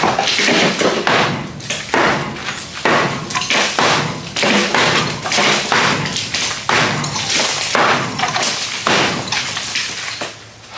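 Small sledgehammer pounding a hollow concrete block wall around a wooden window frame: repeated heavy blows, about one or two a second, easing off near the end.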